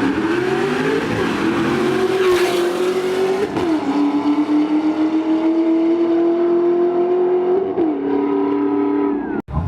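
Car engine revving hard and held at high revs, its pitch dipping and climbing back twice. The sound cuts off abruptly near the end.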